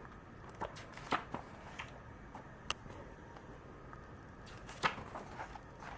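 Faint rustling of magazine pages being handled and turned, with a few short sharp clicks of paper scattered through.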